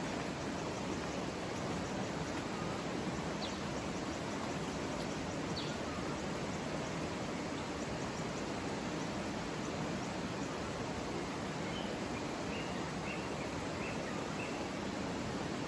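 Steady rush of a shallow river running over rocks, with a few short high chirps near the end.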